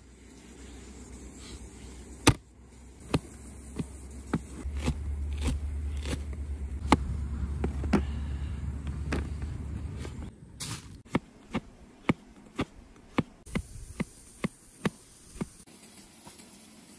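Knife chopping vegetables on a cutting board: sharp chops, scattered at first and then coming about two a second. Under the first part there is a low steady rumble that stops about ten seconds in.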